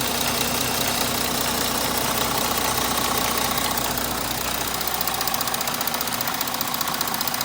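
Audi 3.0 TDI V6 diesel engine running steadily, apparently at idle. About two-thirds of the way through, the sound takes on a fast, even pulsing and loses some of its low end.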